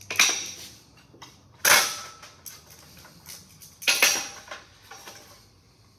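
Rubber mallet striking a 26-gauge galvanized sheet-metal tab over the edge of a wooden board: three sharp blows about two seconds apart, with fainter knocks between them. The blows bend the flange past 90 degrees so that it springs back to square.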